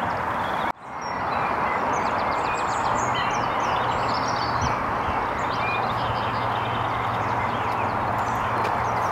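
Outdoor ambience: a steady rushing hiss with many small birds chirping and trilling over it, and a faint low hum from about three seconds in. The sound cuts out briefly just under a second in and fades back up.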